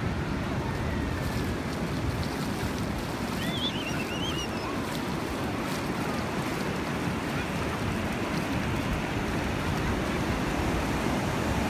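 Steady wash of small waves breaking and running up a sandy beach, with wind rumbling on the microphone. A brief high call is heard a few seconds in.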